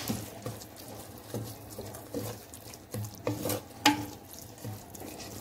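A spoon stirring and scraping through a thick, crumbly mix of moringa leaves and sesame oil cake in a clay pot, working the chilli powder in. The strokes come as irregular scrapes and light knocks against the pot.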